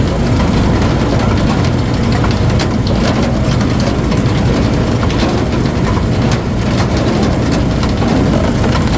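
Heavy engine of a wood-splitting machine running steadily, low and loud, with faint scattered clicks and knocks over it.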